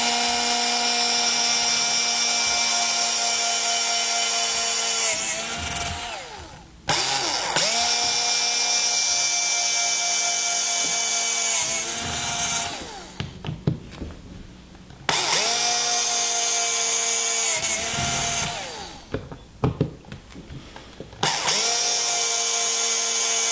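Electric drill boring mounting holes through a steel back plate into a motorcycle Tour-Pak lid, run in four bursts of a few seconds each. The motor's steady whine winds down in pitch each time the trigger is released, with a few light knocks in the pauses.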